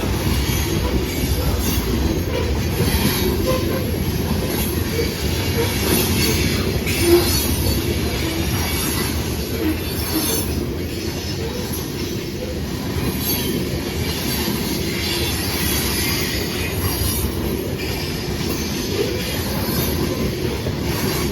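CSX loaded grain freight train rolling past: a steady rumble of steel wheels on rail, with higher wheel squeal coming and going.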